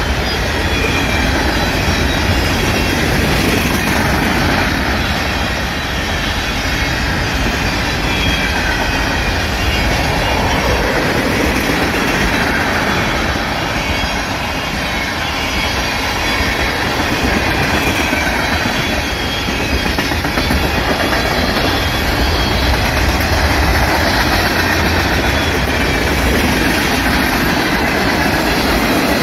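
Union Pacific freight train's covered hoppers and tank cars rolling past close by: a steady, loud rumble and clatter of steel wheels on the rails.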